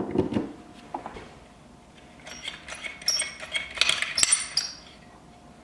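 A plug pushed into a wall outlet with a couple of handling thumps, then about two seconds of sharp metallic clicking and clinking as a hand caulking gun is squeezed to lay a bead of construction adhesive.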